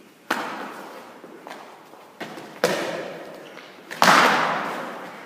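Sparring sticks striking each other, gloves and padded gear: several sharp hits, the loudest about four seconds in, each ringing on in a large echoing hall.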